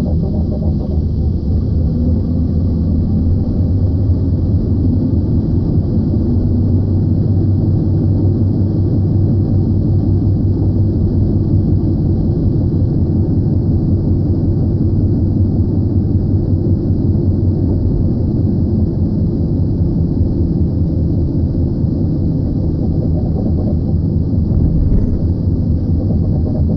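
Steady low drone and road rumble heard from inside a moving car. It is the noise that the owner blames on the tires or the brakes.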